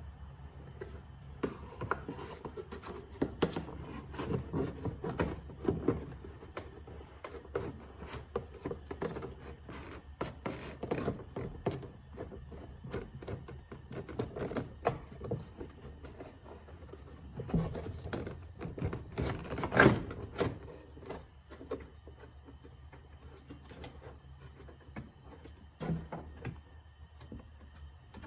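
Hands pressing and rubbing foam seal strips onto a radiator: irregular rustling, scraping and small clicks and taps, with a sharper knock about twenty seconds in.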